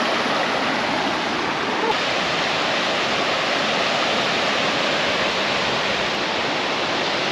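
Waterfall pouring into a gorge waterhole: a steady, even rush of falling water.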